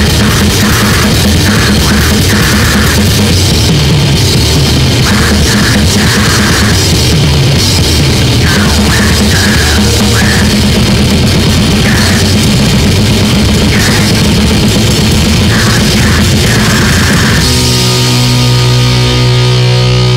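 Grindcore/powerviolence played by a three-piece band: distorted guitar, bass and fast drums in a loud, rough recording that sounds like one microphone in the middle of the room. Near the end the playing gives way to held notes ringing out.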